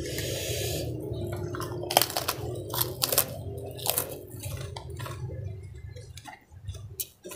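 Close-miked eating: wet chewing of soup-soaked crackers and noodles, broken by many sharp crunches.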